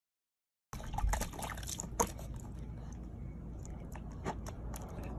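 After a moment of silence, a puppy splashing in water in a small plastic tub, with irregular splashes and drips over a steady low rumble; the loudest splash comes about two seconds in.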